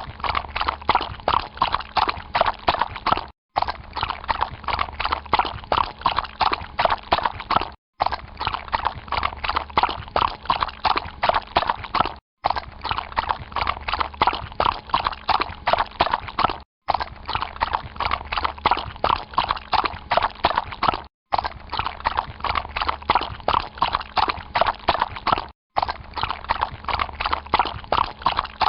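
A horse's hooves stepping through water in a steady walking rhythm. The same short stretch repeats, broken by a brief silence about every four and a half seconds.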